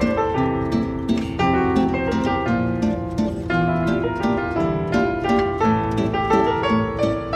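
Background music made of quick plucked-string notes, several a second, over a sustained low tone.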